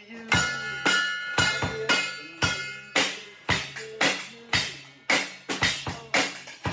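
Rock music with a steady drum-kit beat, about two hits a second, over held instrument notes.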